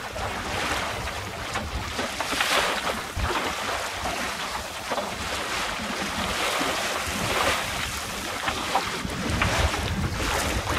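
Water washing along the wooden hull of a small sailboat, a Swallow BayRaider 17, under way in a light breeze, swelling and easing unevenly, with wind rumbling on the microphone.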